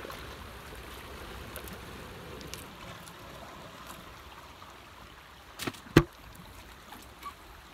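Water washing and trickling steadily, with two sharp knocks close together about six seconds in, the second louder.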